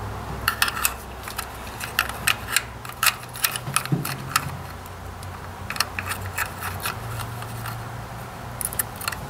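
Small irregular clicks and taps of an electronic ignition module and its wires being handled and fitted into a Ford 800 tractor's opened distributor, over a low steady hum.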